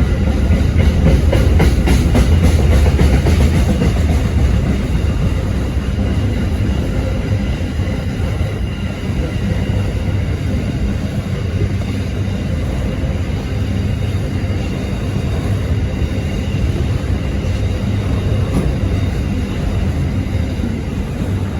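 Freight train passing: diesel locomotives and wagons rolling along the track, loudest in the first few seconds, then steady.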